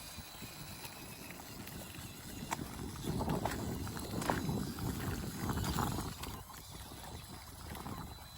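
Redcat Ascent-18, a 1:18 brushed electric rock crawler, driving over rough ground: an irregular clatter of knocks and clicks over a low rumble, louder in the middle.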